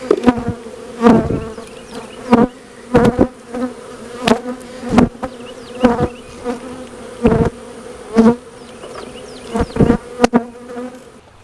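Honey bee colony buzzing steadily in an open hive, with about a dozen sharp knocks and scrapes from the wooden hive frames being worked and pulled.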